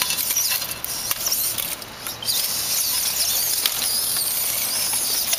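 Small electric drive motors of remote-controlled hobby robots whining at a high, wavering pitch as the robots drive and push against each other.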